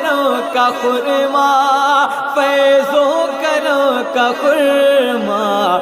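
Background music: an Urdu devotional song (manqabat) in praise of a Sufi saint, sung with a long, ornamented melody that slides and wavers in pitch.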